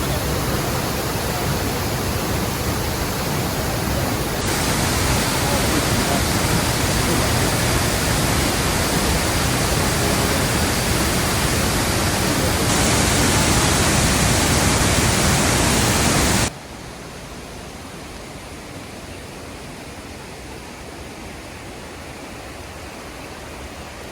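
Waterfall, a steady roar of rushing water, that shifts abruptly twice and then drops suddenly about two-thirds of the way in to a much quieter steady rush.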